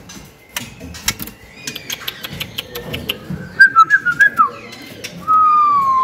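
White-rumped shama singing in its cage: a quick run of loud, clear whistled notes about halfway through, then one long, nearly steady whistle near the end, with sharp ticking clicks scattered throughout.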